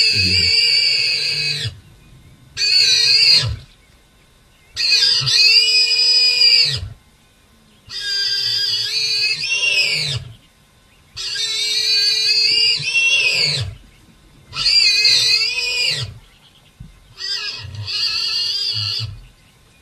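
A warthog squealing in distress, about seven high, wavering squeals in a row, each one to two seconds long with short gaps between.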